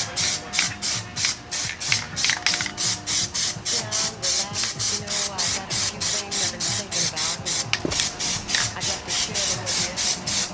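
Background music with a steady beat: a quick, even hiss about three times a second over a bass line and a shifting melody.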